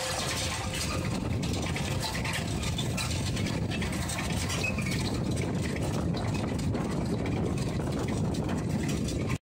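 Tractor engine running steadily while pulling a row-crop cultivator through the field. The sound cuts off suddenly near the end.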